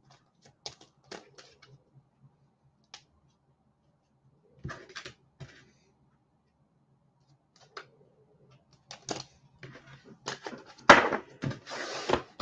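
Light handling noises: scattered clicks and taps, growing into denser rustling with a louder rustle about eleven seconds in, over a faint steady low hum.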